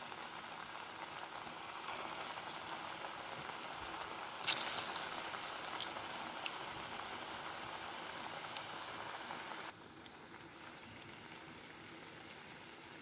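Potato lachha pakoras deep-frying in hot oil in a kadhai: a steady bubbling sizzle. It flares louder briefly about four and a half seconds in and turns somewhat quieter about ten seconds in.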